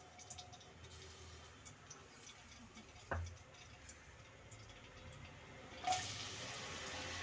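Sliced onions dropped into hot oil in a pressure cooker and starting to sizzle about six seconds in, a sudden onset of steady hiss. Before that the oil is heating quietly, with faint ticks and one short knock from the pot.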